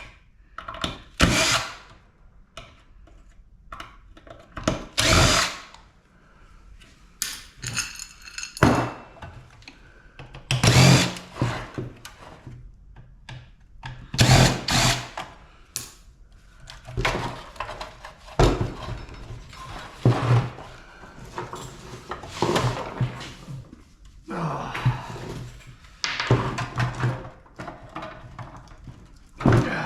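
Handheld power tool running in short bursts of a second or two, over and over, with knocks in between, while scrap metal is being taken apart.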